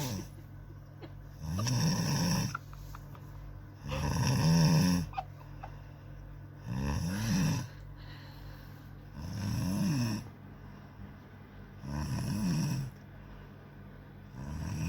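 A person snoring loudly in deep sleep, about six snores at roughly two-and-a-half-second intervals, each with a pitch that rises and then falls.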